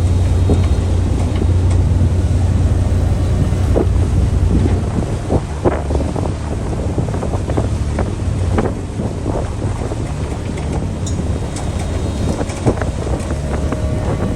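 Fishing boat's engine running with a steady low rumble, wind buffeting the microphone, and scattered sharp knocks and taps from about four seconds in.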